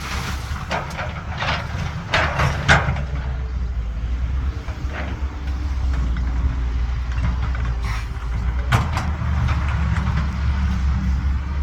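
Heavy diesel machinery running steadily under load, with clusters of clattering knocks in the first three seconds and a sharp knock near nine seconds, as an excavator bucket works material into a truck.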